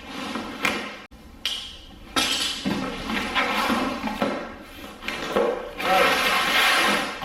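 Cardboard shipping box being cut open and unpacked: a knife slitting the packing tape, then cardboard scraping and rustling as the flaps open and an inner cardboard box slides out, loudest near the end.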